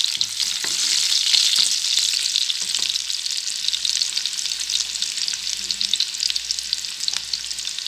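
Chopped garlic sizzling in hot oil in a frying pan: a steady frying hiss flecked with fine crackles and pops.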